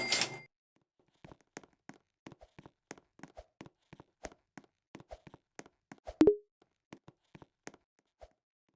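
A short rustling burst, then a quick run of light clicks or taps, about three a second, with one louder thump about six seconds in.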